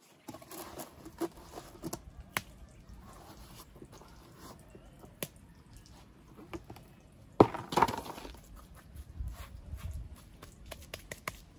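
Hands working wet cob over an earth-oven dome: scattered soft pats, taps and scrapes on the earth, with one louder thump about seven and a half seconds in.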